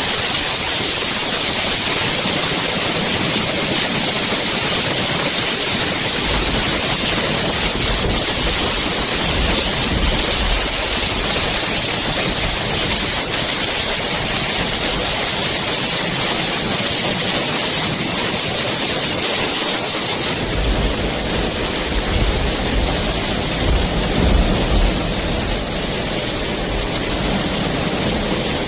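Steady heavy rain hissing, with low rumbles of distant thunder swelling up about a third of the way in and again from about two-thirds of the way through.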